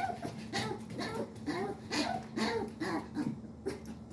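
Excited pet dogs giving a rapid run of short, high yipping and whining calls, about two or three a second.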